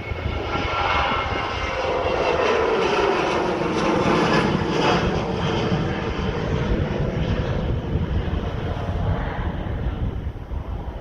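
Jet engines of a Transavia Boeing 737-800 at takeoff thrust as it climbs away just after rotation: a loud roar that swells to a peak about four seconds in, with a whine falling in pitch as it passes, then slowly eases.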